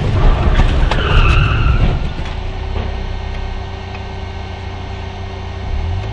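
Car tyres squealing briefly about a second in, over a loud rumble of a car on the road; after that the sound settles into the quieter steady hum of a car driving.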